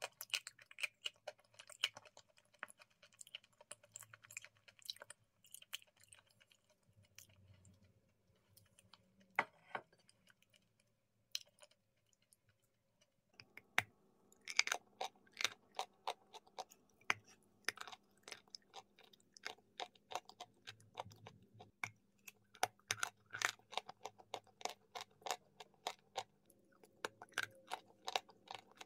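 Close-up mouth crunching and chewing a dry, crumbly grey chunk, with many sharp crisp crunches. They come sparsely at first and thicken into rapid crunching about halfway.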